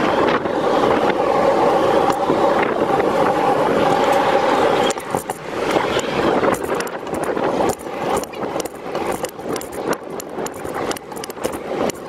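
City street traffic, heard from a moving bicycle: a steady motor hum for the first five seconds, after which it drops away and a run of rattling clicks takes over.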